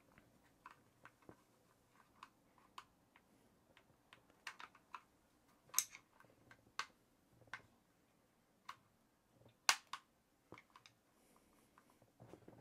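Faint, irregular metallic clicks from a socket wrench turning the rear axle nut on a Dualtron electric scooter's hub motor, with two louder clicks about six and ten seconds in.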